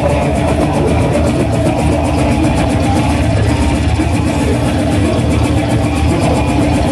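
Brutal death metal band playing live: heavily distorted electric guitars and bass over rapid, even drumming that never lets up.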